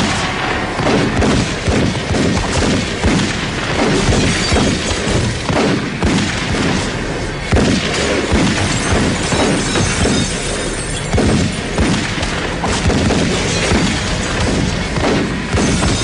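Action-scene sound mix: a dense, loud run of booms, crashes and impacts, with music under it.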